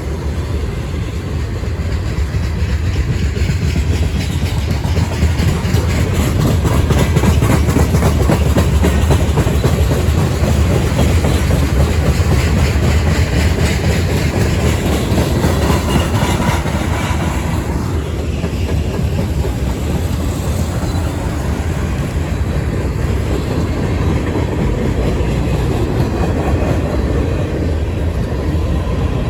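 Freight train of coal hopper cars rolling past, a steady wheel-on-rail rumble with the clickety-clack of wheels passing over rail joints.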